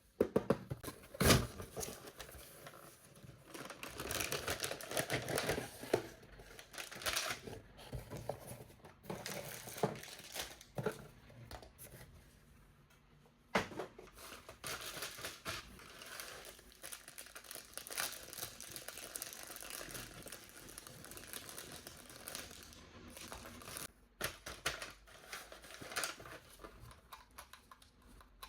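Packaging being handled: crinkling and rustling with scattered small clicks, and a sharp knock about a second in and again about halfway.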